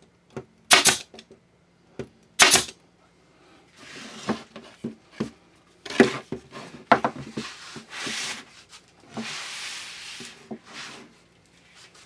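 Pneumatic stapler firing staples into wooden frame joints: two sharp shots about two seconds apart. After about four seconds, softer irregular scraping and clicking.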